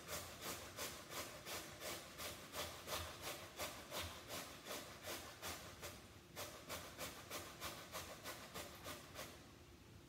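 Peeled raw potato being grated on a metal box grater: steady rhythmic rasping strokes, about three a second, with a brief pause a little past halfway, stopping shortly before the end.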